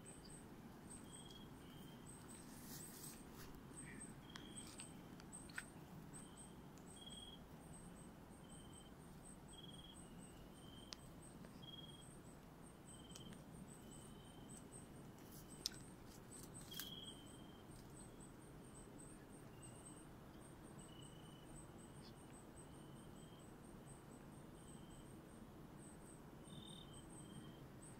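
Faint night-time forest chorus: a very high insect call pulsing several times a second, and a short chirping call repeated about once a second. A few light clicks and snaps stand out, the sharpest about two-thirds of the way through.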